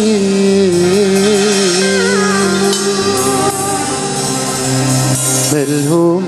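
Live band playing an Egyptian pop song: a drawn-out, ornamented melody with vibrato over drums and hand percussion.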